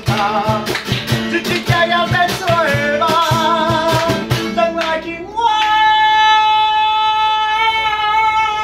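A man sings live to strummed acoustic guitar and electric bass, over a steady strummed beat. About five seconds in the strumming stops and he holds one long high note.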